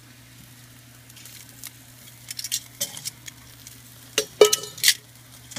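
Chicken wings sizzling over charcoal on a kettle grill, with scattered crackles and pops. A few louder, sharp metallic clinks come about four seconds in.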